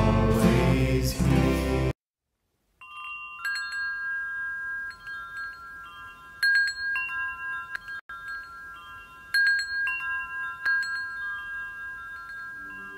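Metal-tube wind chime ringing: irregular strikes of a few high, clear tones that ring on and overlap. Before it, about two seconds in, music cuts off and a moment of silence follows.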